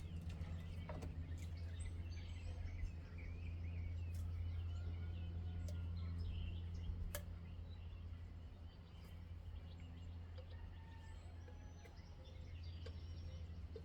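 A steady low hum, with faint birds chirping over it and a few light clicks.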